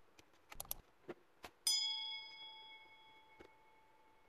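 A few light clicks, then a single bell-like ding that strikes sharply and rings out, fading over about two seconds. It is the notification-bell sound effect of a subscribe-button animation.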